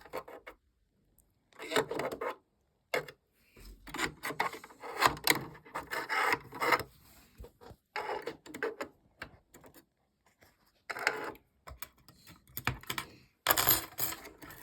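Metal tweezers scraping and rubbing inside a sewing machine, picking out built-up fluff, in irregular scratchy bursts with short pauses; the loudest scrape comes near the end.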